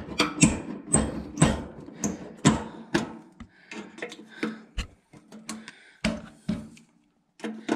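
Needle-nose pliers clicking and scraping against the sheet-metal deck-height plate of a Craftsman lawn tractor as the thin metal left between cut holes is pried and broken away to open up the height notches. Irregular sharp metal clicks and taps, several a second, loudest in the first few seconds and sparser later.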